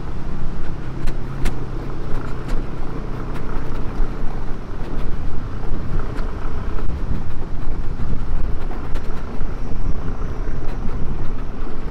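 Aprilia SR 150 scooter's single-cylinder engine running under way on a rough dirt road, mixed with tyre and road noise. A few sharp clicks or knocks come in the first three seconds.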